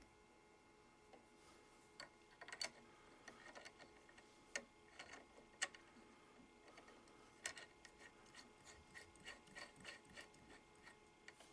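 Faint, irregular metallic clicks and ticks of fingers handling the DeWalt 611 router's collet nut and a 1/8-inch bit, over a faint steady hum.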